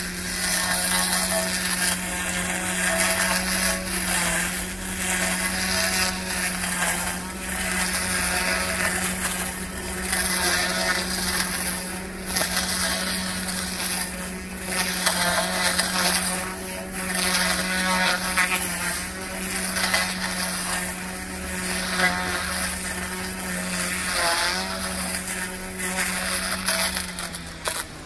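Cordless battery-powered grass trimmer running at a steady high speed, its electric motor whining evenly while the cutting head rips through thick weeds with an uneven swishing crackle. The motor starts to wind down right at the end.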